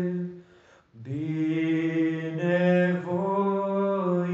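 A single voice singing a slow Romanian psalm hymn in long held notes, with a short breath pause about half a second in.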